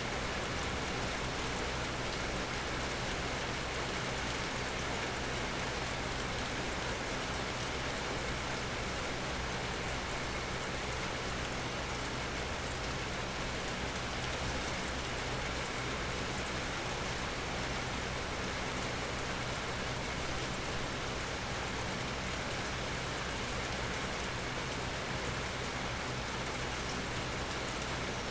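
Steady rain falling and pattering on surfaces under a tree, an even hiss with fine drop ticks and no change in strength.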